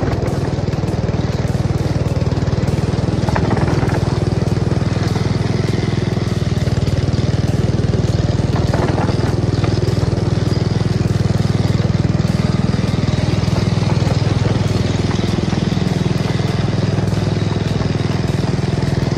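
Small engine of a 10¼-inch gauge miniature railway locomotive running steadily as it travels along the track.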